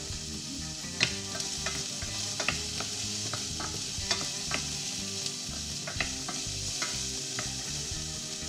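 Chorizo sizzling as it fries in a steel pot. About a dozen irregular sharp clicks and taps come from pieces being dropped in and stirred with a wooden spoon.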